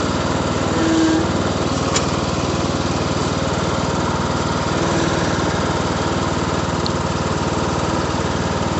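Riding lawn mower's small engine running steadily, with one light click about two seconds in.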